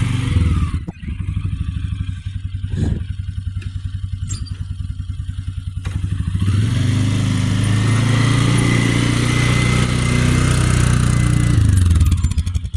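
A small engine on the vehicle towing the mower, running. It drops to a slow, pulsing idle about a second in, then throttles back up around six seconds in and holds before easing off near the end.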